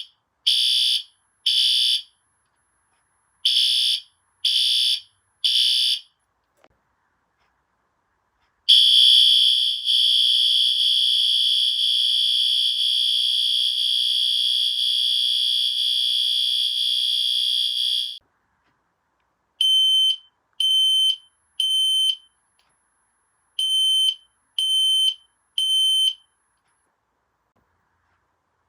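System Sensor P2GRL fire alarm horn strobe sounding through its tone settings. First the horn sounds in a temporal-three pattern: three short blasts, a pause, then three more. Next comes a steady horn for about ten seconds, and last a thinner, purer tone in the same three-and-three pattern, with short silences between settings.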